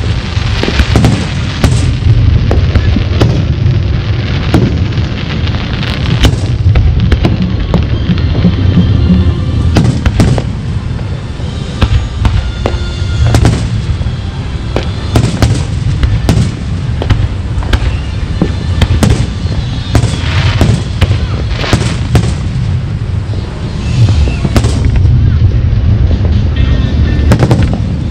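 Fireworks display: aerial shells bursting one after another in quick succession, dense sharp bangs with hardly a pause, over a heavy low rumble.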